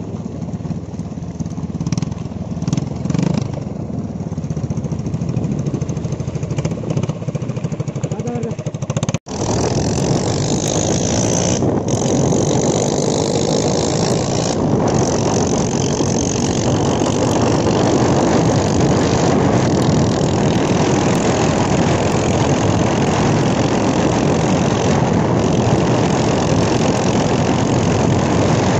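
Yamaha dirt bike's small single-cylinder engine running at idle, then, after an abrupt break about nine seconds in, running steadily under way with a louder rush of wind and road noise over it.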